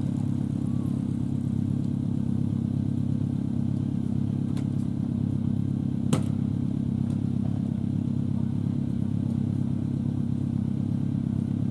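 Motorcycle engine idling steadily at a constant pitch, with a faint click about four and a half seconds in and a sharper click about six seconds in.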